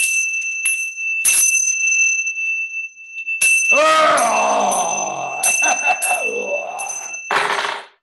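A pair of tingsha, small hand cymbals joined by a cord, struck together several times and left ringing with a steady high bell tone. From about four seconds in, a man's voice calls out in a long vocalisation that falls in pitch over the ringing. The ringing is stopped shortly before the end.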